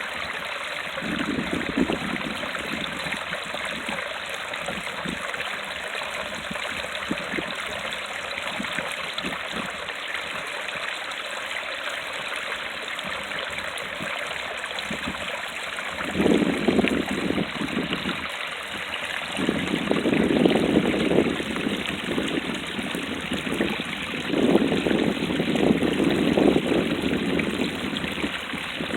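Creek water spilling over rocks in a small waterfall: a steady rushing, with louder, deeper surges several times in the second half.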